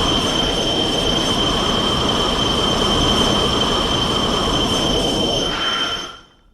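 Video-game energy-beam blast sound effect, the Kamehameha from Dragon Ball Xenoverse 2: a loud, steady rushing hiss with a constant high whine over it, fading out about six seconds in.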